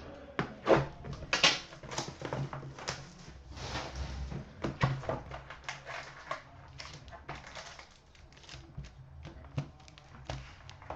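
Rustling, crinkling and irregular clicks from a trading-card hobby box and its packs being opened and handled.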